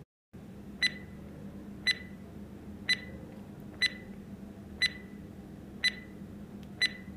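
Countdown timer sound effect: a short clock tick with a brief high ring, once a second, seven times, over a faint steady hum.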